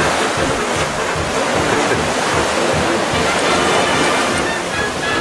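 Wind buffeting the camera microphone over the steady hiss of surf on the shore, a loud, even rush with irregular low rumbles throughout.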